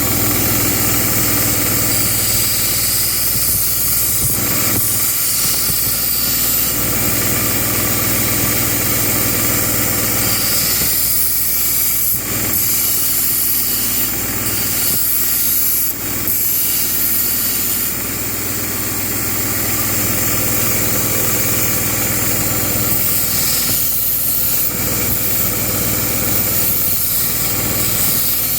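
Belt grinder running steadily, its abrasive belt hissing against the steel of a Japanese knife being ground on the soft platen to take out chips in the edge. The grinding sound drops briefly about 12 and 16 seconds in.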